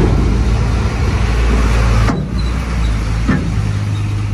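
Hino truck's diesel engine running low and steady as the truck rolls slowly past at close range, with a single short click about three seconds in.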